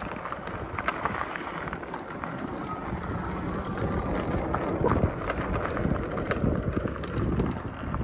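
Wind buffeting the microphone in an uneven low rumble, with scattered clicks and crunches.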